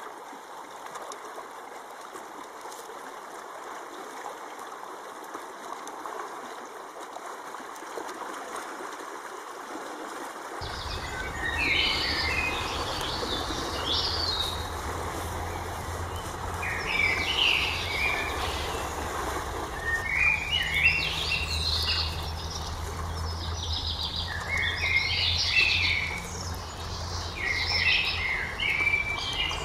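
Birds chirping and trilling in quick clusters, starting about a third of the way in over a low steady hum. Before that there is only a soft, steady rushing noise.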